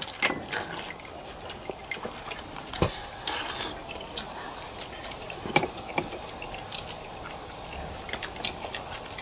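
Bowls of pho being eaten: spoons and chopsticks click and knock against bowls amid soft liquid sounds of broth. The clicks are light and scattered, with a couple of sharper knocks about three and five and a half seconds in.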